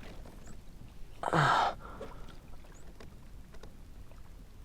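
A man's short, forceful breath out about a second in, then a few faint small clicks.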